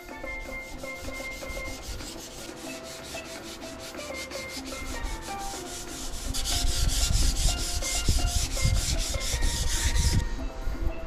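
Hand-sanding with 320-grit sandpaper on a primed aluminum dinghy davit: quick, even back-and-forth strokes. The strokes turn much louder about six seconds in and stop shortly before the end. This is a light scuff-sanding of the grey primer before the topcoat.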